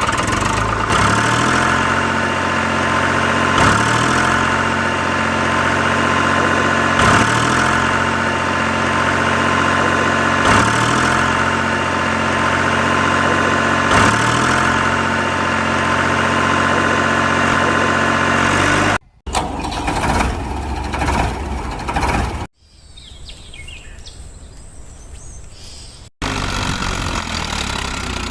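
Recorded tractor engine sound idling on a loop, the same pattern repeating about every three and a half seconds, as from a toy's sound module. It cuts off suddenly about 19 seconds in, followed by short, abrupt bursts of other mechanical noise.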